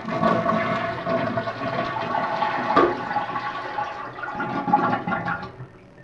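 Toilet flushing with its water supply shut off, the tank emptying into the bowl in a gurgling rush of water that dies away shortly before the end.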